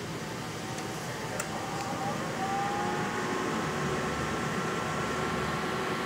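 Biotage Initiator microwave synthesizer running with a steady fan noise. About a second and a half in there is a click, then a whine that rises in pitch and settles into a steady tone as its magnetron switches on.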